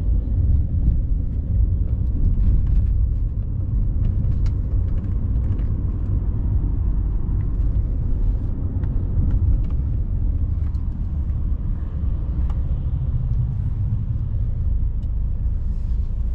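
Steady low road rumble heard from inside a moving car's cabin, with a few faint clicks and ticks over it.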